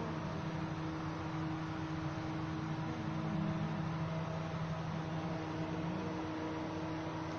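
Steady low hum over an even hiss of background noise, with no clear event in it.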